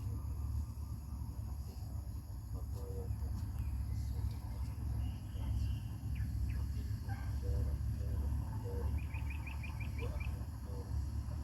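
Birds chirping over a steady low rumble; near the end a bird gives a quick run of about eight chirps.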